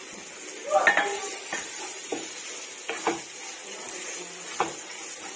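Wooden spatula stirring and scraping sliced stink beans and bamboo shoot in a wok over a steady sizzle. The scrapes and knocks on the pan come irregularly, the loudest about a second in.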